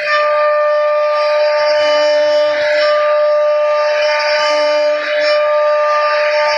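CNC router spindle whining steadily while its bit carves a wooden panel, with the rougher noise of cutting over the whine. A lower hum comes and goes every second or two, likely as the machine moves between cuts.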